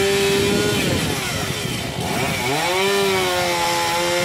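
Chainsaw running at full throttle, cutting into a tree. Its pitch sags about a second in as the chain bites into the wood, then climbs back and holds from about three seconds.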